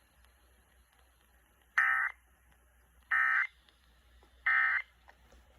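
Emergency Alert System end-of-message signal: three short bursts of SAME digital data tones, each about a third of a second long and spaced about 1.3 s apart, starting about two seconds in. It marks the end of the Child Abduction Emergency alert.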